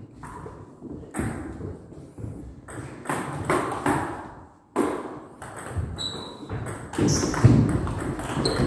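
Table tennis ball clicking off the table and bats: a few scattered bounces, then a rally begins about seven seconds in.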